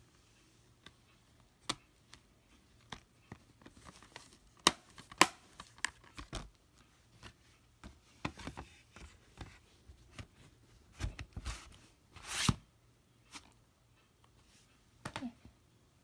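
A hard plastic DVD case with its discs being handled: scattered sharp clicks and short plastic rustles, and a louder scraping rustle about three quarters of the way through.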